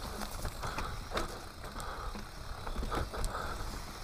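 Mountain bike riding down a leaf-covered dirt singletrack: tyres rolling over dirt and dry leaves, with irregular clicks and rattles from the bike over bumps and a steady low rumble.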